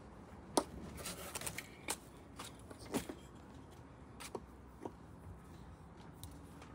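Faint, scattered clicks and light taps from hands handling a round LED off-road light and its cable with its plastic plug.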